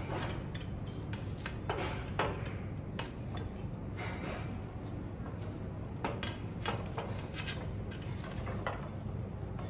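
Irregular clicks and light knocks of screws, a screwdriver and chair parts being handled during assembly of an Adirondack chair, over a steady low hum.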